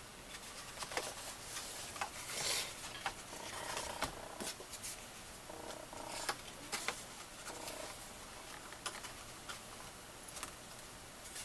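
Stiff cardstock being handled: rustling, scraping and light taps as scored black cardstock panels are folded up and pressed against a box base.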